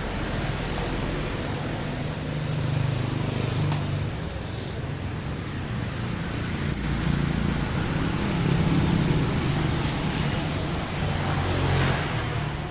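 A fuel-injected engine running at idle during a tune-up. Its sound swells a few times, around the third, ninth and twelfth seconds, over a steady high whine.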